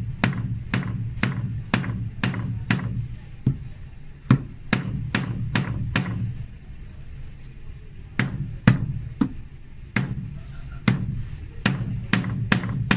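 Cobbler's hammer driving threaded nails down through the insole into a leather heel block: sharp metal-on-metal strikes, two to three a second, in runs broken by short pauses.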